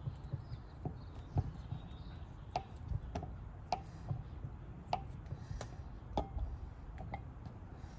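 Oak wood fire crackling: irregular sharp pops about once or twice a second over a low steady rumble.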